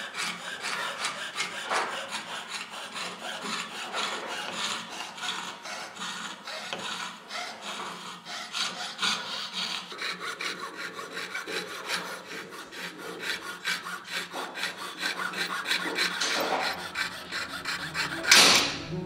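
Fine-bladed hand fretsaw cutting ornaments out of a three-layer Boulle marquetry veneer packet, in quick, even rasping strokes, with one louder stroke near the end.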